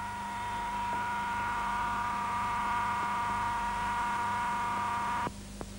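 Small electric motor of a precision machine tool running at speed: a steady whine of several fixed tones that cuts off abruptly about five seconds in.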